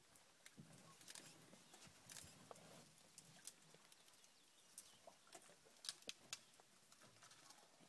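Near silence, broken by scattered faint clicks and snaps at irregular intervals, a few slightly louder ones about six seconds in.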